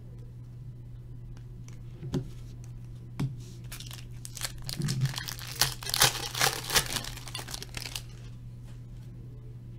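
A Topps Chrome baseball card pack wrapper being torn open and crinkled: two sharp taps, then about four seconds of dense crinkling and tearing.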